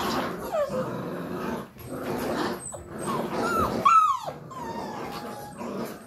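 Puppies growling in tug-of-war play over a rope toy, with a few short high whines and yips; a sharp yip about four seconds in is the loudest sound.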